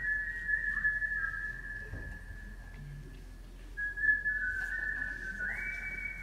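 A slow whistled melody of long held high notes, stepping between pitches every second or two, playing as the dance's accompaniment track.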